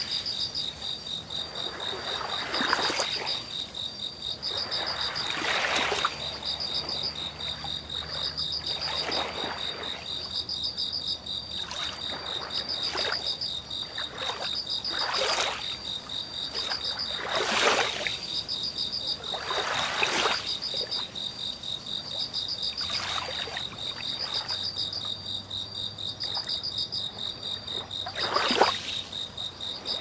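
Night-time nature ambience: a chorus of frogs and crickets keeps up a rapid, pulsing high-pitched chirping throughout, while swells of washing water rise and fall every two to three seconds.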